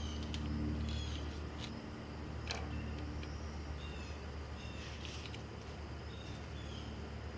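Birds chirping in short, falling calls over a steady low hum, with one sharp click about two and a half seconds in.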